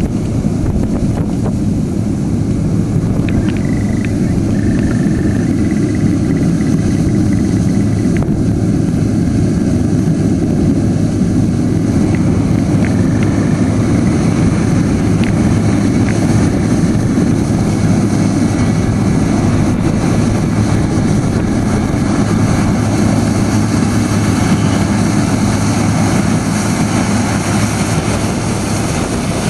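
Heavy diesel farm machinery running steadily with a deep, even engine hum at a constant speed.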